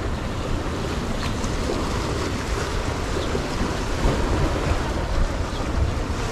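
Wind buffeting the camera microphone with a low rumble, over a steady wash of small waves on the shore. The gusts come a little stronger from about four seconds in.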